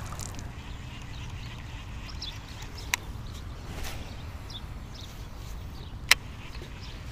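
Outdoor ambience on a small pond: a steady low rumble of wind on the microphone, a few faint high bird calls, and two sharp clicks about three seconds apart as a baitcasting rod and reel are handled in an aluminium boat.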